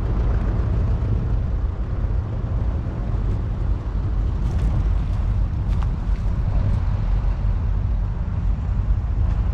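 Fordson Power Major's 3.6-litre four-cylinder diesel engine running steadily with a low, even rumble, and a few faint clicks.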